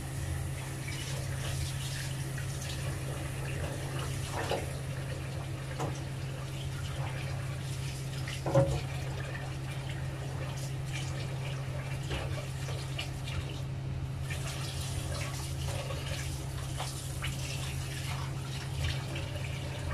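Tap water running into a stainless-steel kitchen sink while cuttlefish are rinsed and handled, with scattered small knocks and clatter and one louder knock about eight and a half seconds in.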